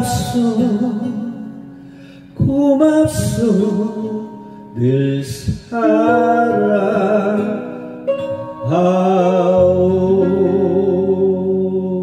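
Korean trot ballad: a man singing long, wavering held notes in phrases over a slow backing track.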